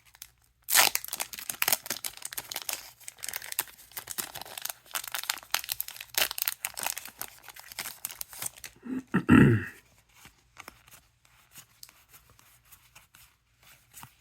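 A trading-card booster pack wrapper being torn open and crinkled, a dense crackling for about eight seconds. About nine seconds in there is a brief, louder, lower sound. After that there are only faint ticks of cards being handled.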